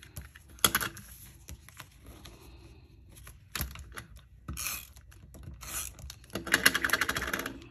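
Handheld adhesive tape runner drawn along cardstock, with a few separate clicks and paper taps, then a fast run of clicking near the end as the tape is laid down.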